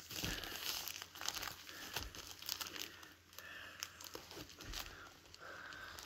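Packaging being handled and pulled open by hand: faint, irregular crinkling and rustling of a comic-book mailer and its wrapping.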